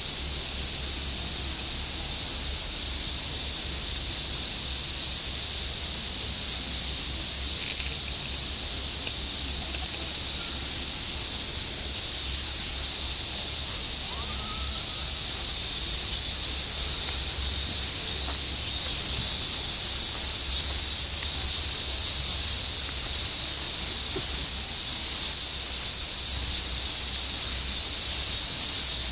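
Cicadas buzzing in a steady, dense chorus, a continuous high-pitched shrill that never lets up, with a low rumble underneath.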